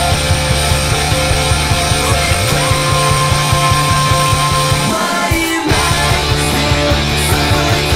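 Rock song, in a punk/grunge style, played as a backing track with its lead vocal muted, loud and steady. About five seconds in the bass and drums drop out for a moment, then come back.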